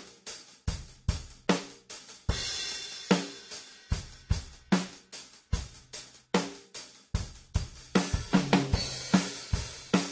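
Background music built on a steady drum-kit beat, about two to three hits a second, with cymbal crashes about two seconds in and again late on.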